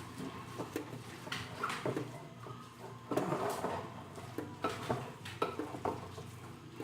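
Irregular knocks, clinks and scrapes of a utensil against a bowl as a ground-beef filling is mixed.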